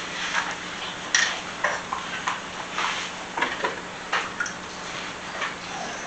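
Light clicks and clinks of kitchen containers and utensils being handled, irregular and spaced about half a second to a second apart, over a faint steady hum.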